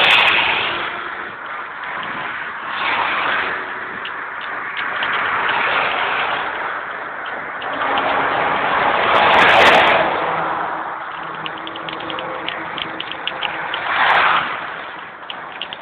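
Rapid mechanical ticking, like a ratchet, over a rushing noise that swells and fades several times.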